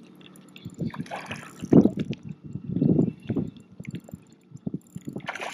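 Shallow bay water sloshing and splashing in irregular bursts around a wading angler fighting a hooked speckled trout.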